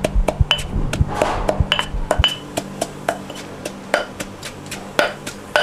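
Pestle pounding chili paste in a mortar: a steady run of strikes, about three to four a second, each with a short clink.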